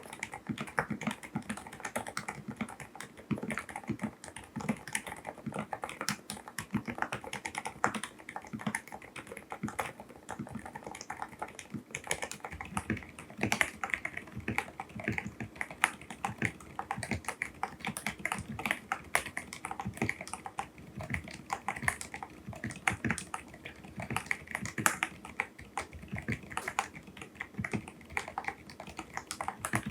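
Mechanical keyboard with silent (dampened) switches being typed on steadily, a fast, continuous run of soft keystrokes with no pauses.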